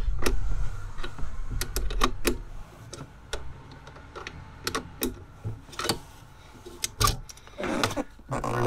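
A spanner clicking and tapping on the 10 mm nut of a van starter battery's positive terminal as it is undone. The sharp metal clicks come irregularly, a few a second. A low rumble lies under them for the first few seconds.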